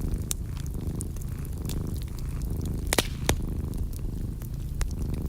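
A cat purring steadily, a low, pulsing rumble, with scattered crackles of a wood fire and two louder pops about three seconds in.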